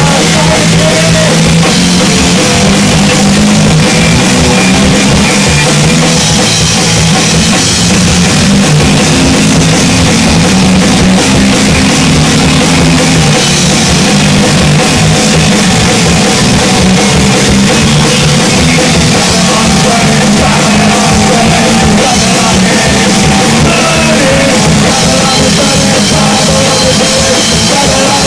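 A live rock band playing a punk song at full volume: electric guitar, bass guitar and drum kit, with singing. It runs loud and unbroken, with no pause.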